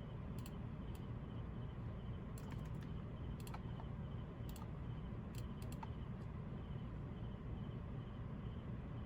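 A few light, scattered clicks and taps, some in a quick cluster, over a steady low hum. The clicks stop about six seconds in.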